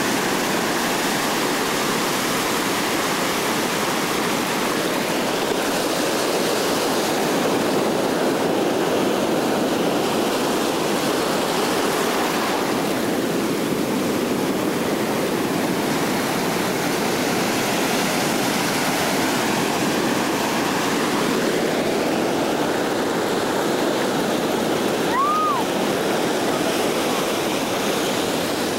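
Ocean surf breaking and foamy swash washing up over the beach sand: a steady rushing of water that swells and eases with the waves.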